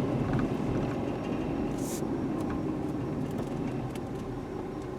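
Steady low rumble of a running vehicle, slowly fading.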